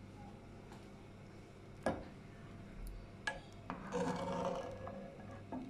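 A metal spoon and wire whisk working through curdled milk in a non-stick pan, scooping the separated curds out of the whey. The sound is faint scraping against the pan, with a sharp clink about two seconds in and a couple of lighter ones a little later.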